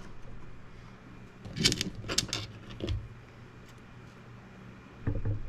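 A printer cover being slid back into place by hand, a short cluster of clicks and scrapes about a second and a half in, then a quieter knock.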